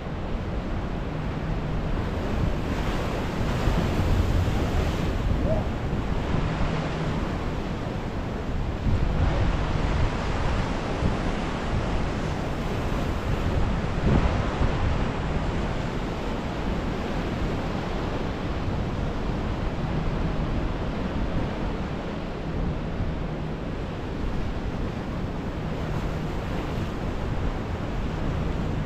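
Pacific Ocean surf washing over a rocky jetty shore, a steady rush that swells louder several times as waves break. Wind buffets the microphone with a low rumble.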